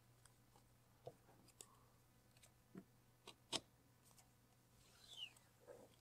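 Faint, scattered snips of scissors cutting vinyl rocker graphic, the loudest about three and a half seconds in. Near the end, a brief rustle of the graphic's paper backing liner being peeled off.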